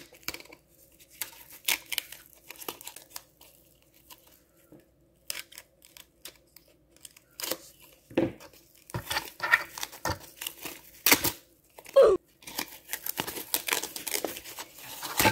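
A hobby knife cutting through packing tape, then the tape and wrapping being torn and peeled off a plastic model rail car. The tearing and crinkling come in irregular scratchy bursts, sparse at first and busier from about halfway through.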